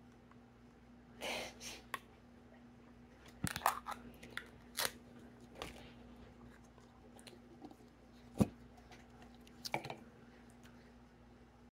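Hands poking, squeezing and stretching a clay-heavy slime: scattered soft sticky squishes and crackles, with one sharper click about eight seconds in.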